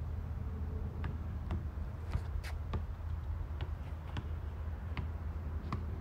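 Quiet outdoor ambience: a low steady rumble with scattered faint light ticks at irregular intervals.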